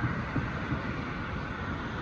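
Steady low rumble of an approaching Amtrak passenger train, before its horn sounds.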